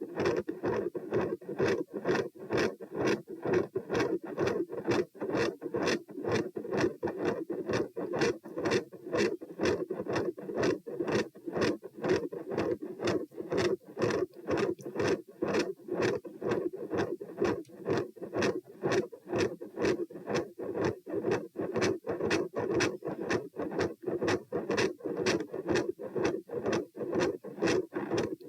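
Heart sounds heard through a stethoscope at the pulmonic area, beating fast and regularly. Each beat carries a mid-systolic murmur and a very loud second heart sound (S2).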